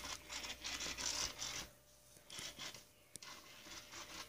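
A cat's paws and fur scratching and rubbing against the phone's microphone in short irregular scratchy bursts, easing off about two seconds in, with a single sharp click about three seconds in.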